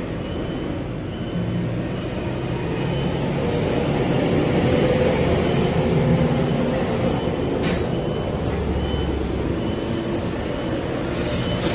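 Steady low rumble of motor vehicle engine noise, swelling a little in the middle, with a faint high peep repeating about once a second.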